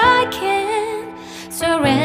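Background music: a slow, tender song with a wavering sung melody over sustained backing, briefly quieter about a second in.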